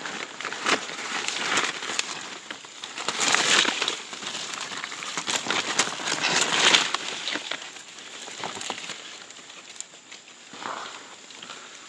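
Rustling and crackling of dry leaves, bamboo sheaths and undergrowth being pushed aside and handled, in uneven bursts, loudest a few seconds in and again just past the middle.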